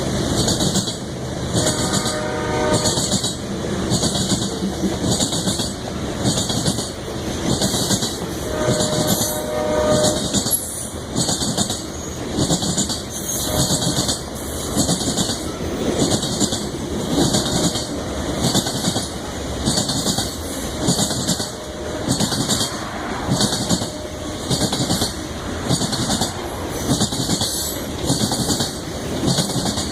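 Freight train rolling past, its wheels clacking over rail joints in a steady rhythm about once a second. The lead locomotive's five-chime Nathan K5HL air horn sounds two short chords, about two and nine seconds in.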